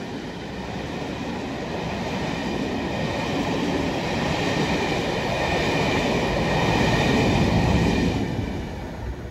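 A railtour's rake of passenger coaches running past on the line below, the wheels rolling with a steady high ringing from wheels and rails. It builds to its loudest and then falls away about eight seconds in as the last coach passes.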